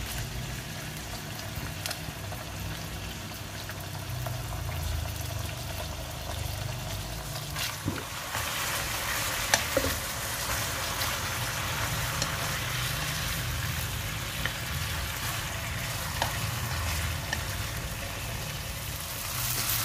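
Marinated pork chops sizzling as they fry in hot oil in a nonstick wok, the sizzle growing louder about eight seconds in, with a few faint clicks.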